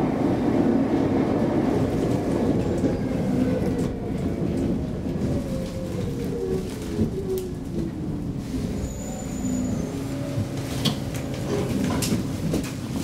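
Stockholm Metro C6 train braking into a station: running rumble and wheel clatter, with a whine that falls steadily in pitch as it slows. Near the end come a few sharp clicks and knocks as it comes almost to a stop.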